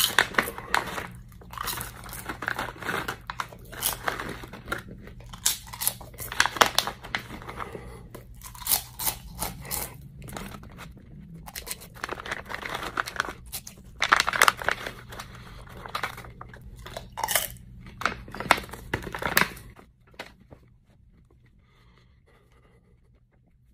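Close-miked crunching and chewing of Carolina Reaper peppers, mixed with a plastic bag crinkling as the peppers are pulled out one after another. It goes quiet a few seconds before the end.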